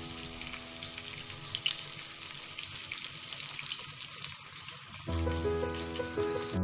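Onions and curry leaves frying in a clay pot: a steady crackling sizzle, under background music that comes back louder about five seconds in.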